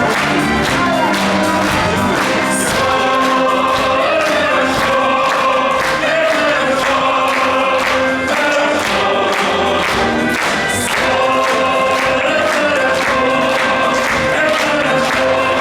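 Stage musical's cast singing together in chorus over live orchestral accompaniment, a full, steady sound of sustained sung notes.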